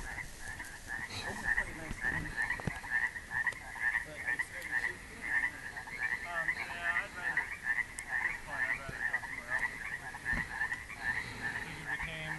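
A chorus of frogs calling from the water: a steady run of short, overlapping croaks, several a second.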